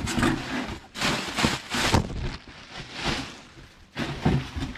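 Cardboard parts box being opened and rummaged through, with the plastic-wrapped parts inside rustling and crinkling in several irregular bursts.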